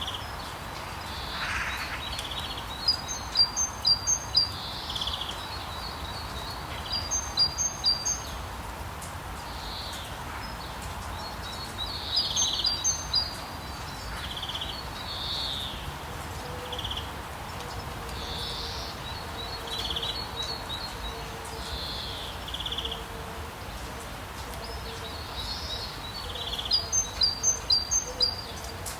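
Steady rain hiss under songbirds singing: one bird gives a short, loud run of rapid high notes four times, with scattered single calls between.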